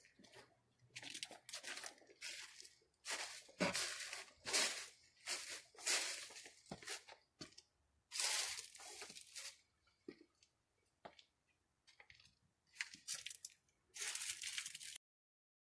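Footsteps crunching through dry fallen leaves on concrete, a step every second or so, stopping abruptly near the end.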